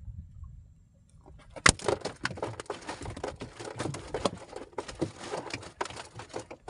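A sharp knock on the wooden boat, then an irregular run of crackling, tapping and rustling as fishing line and gear are handled in the hull.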